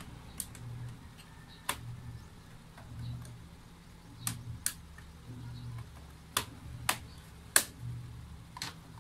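Plastic clips of an Asus X556UQ laptop's bottom case snapping into place under hand pressure: about eight sharp clicks at uneven intervals, the loudest a little past seven and a half seconds in.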